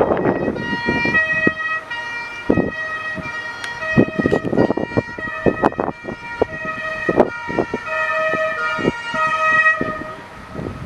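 Fire engine's two-tone siren (Martinshorn) sounding on an emergency run, switching back and forth between a low and a high note, with gusts of wind buffeting the microphone.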